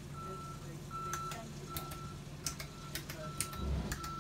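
An electronic beeper sounding a steady, repeated high beep, about one every 0.8 s, with a few short clicks and knocks over it.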